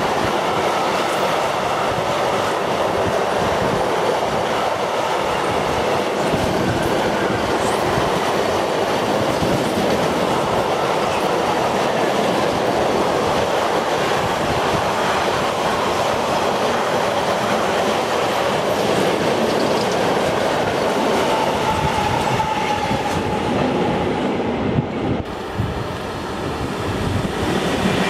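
Freight train of double-deck car-transporter wagons running through at speed: a steady, loud noise of wheels on rails. About three seconds before the end it cuts to another freight train of covered hopper wagons passing close by.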